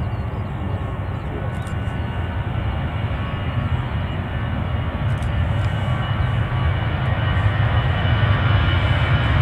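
Jet engines of a taxiing twin-jet airliner running at low power: a steady low rumble with a faint whine that slowly grows louder.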